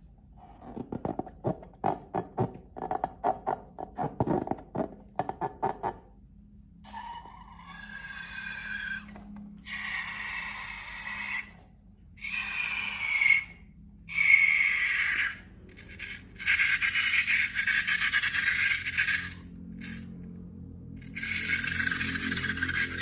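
Slime worked by hand with quick sticky crackles for the first few seconds, then a series of rubbery scraping squeaks in bursts of one to two seconds, typical of long balloons being rubbed and squeezed.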